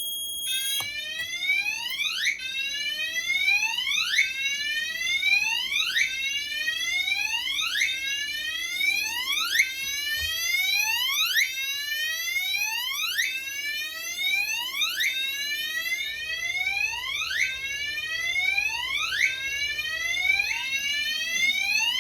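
Fire alarm system sounding after the SM-501P duct smoke detector is put into test with its remote key switch: a sweeping alarm tone that repeats over and over, with a steady tone underneath, signalling the duct detector's supervisory condition.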